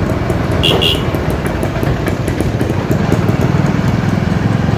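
Motorcycle engine running steadily on a ride. There are two quick high beeps close together just under a second in.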